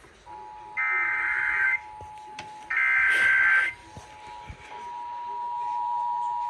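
Emergency Alert System test signal: two harsh, warbling digital header bursts, each about a second long, about one and three seconds in. Under them runs the steady two-tone attention signal, which carries on alone after the bursts and slowly grows louder.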